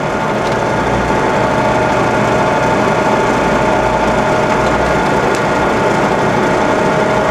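Cincinnati No. 6 Dual Power vertical mill running with its power cross feed driving the saddle, the feed lever held in. It makes a steady mechanical whir with a constant whine, and a low rumble that swells and eases as the drive runs.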